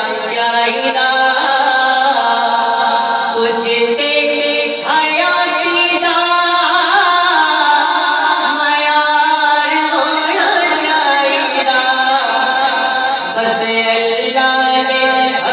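A man singing unaccompanied into a microphone, a devotional recitation in long, wavering held notes with no instruments.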